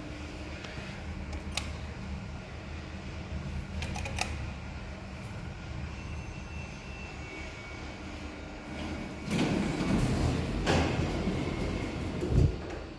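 Steady low mechanical hum with a few sharp clicks, then about nine seconds in a louder rattling, rushing stretch of some three seconds ending in a thump, as the service elevator arrives and its doors open.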